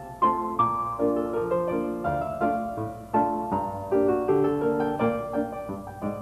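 Solo piano music: a melody over chords, each note struck sharply and fading.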